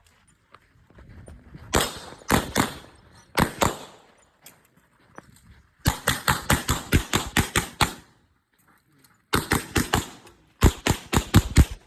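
Pistol shots fired in quick strings: a few shots early on, a fast string of about ten in the middle, and two more quick strings near the end, with short pauses between them.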